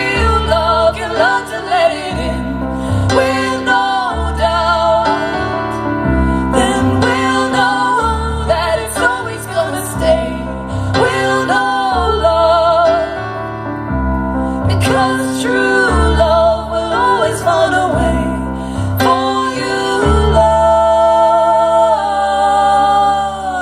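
Live song: female voices singing sustained, wordless-sounding lines with vibrato over piano chords, closing on a long held note.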